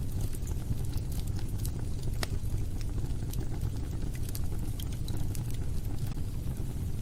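Wood fire burning in a fireplace: a steady low rumble of flames with scattered sharp crackles and pops, one louder pop about two seconds in.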